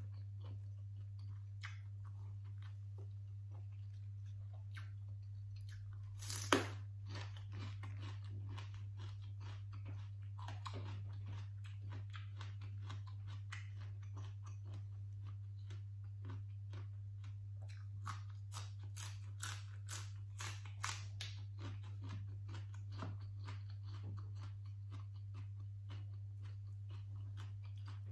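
Close-up chewing and crunching of raw vegetables, with one sharp, loud bite about six and a half seconds in and a quicker run of crisp crunches later on. A steady low hum runs underneath.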